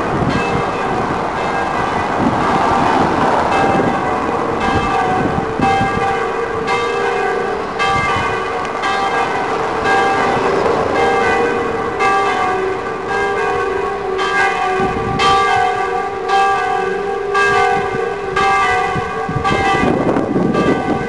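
Church bells ringing a continuous peal, a new strike about every second, over a background of city street traffic.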